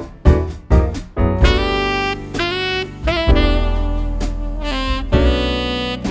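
Jazz music: drum hits in the first second, then a saxophone playing a melody of held, sliding notes.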